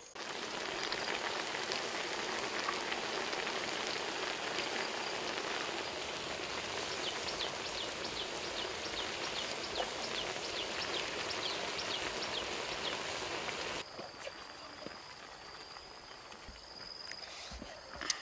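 Whole chickens and boiled eggs cooking in red sauce in a large metal pan, sizzling steadily with a scatter of small pops. The sizzle stops suddenly about three-quarters of the way through.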